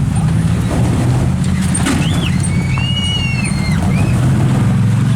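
Off-road vehicle's engine running steadily under load as it crawls up a rock ledge. A high-pitched squeal arches up and down for about a second and a half midway.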